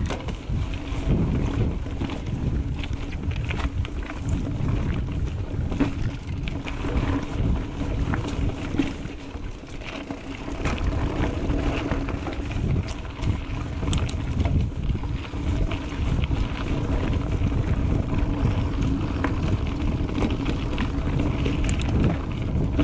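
Mountain bike ridden along dirt singletrack: wind rushing over the microphone and a low rumble of riding, with frequent small clicks and rattles from the bike over bumps.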